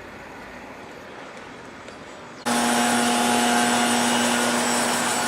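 Quiet background, then about two and a half seconds in a machine cuts in abruptly and runs steadily at much higher level, with a constant hum under a loud hiss.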